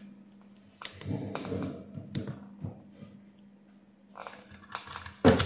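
Light clicks and taps from a hand working a small push-button test circuit on a bench, with a sharp click about a second in and another a little after two seconds. A faint steady hum runs underneath.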